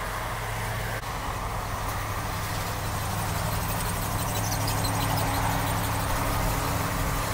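A Ford Super Duty dually pickup's engine running as it moves slowly through snow and slush, over a steady low hum of idling vehicle engines. The sound grows somewhat louder from about three seconds in.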